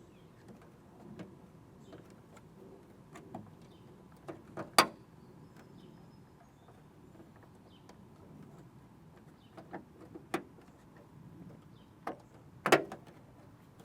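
Handling noise of a plastic backup camera and its trim piece being fitted, with scattered sharp plastic clicks as the camera is pressed and clipped into place; the loudest clicks come about five seconds in and near the end.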